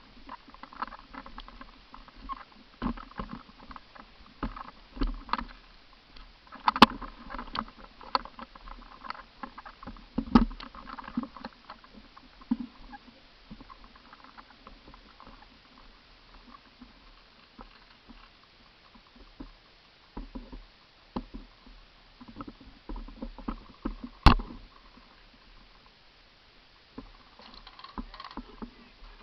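Irregular rustling and clicking, with two sharp cracks, one about seven seconds in and one about twenty-four seconds in.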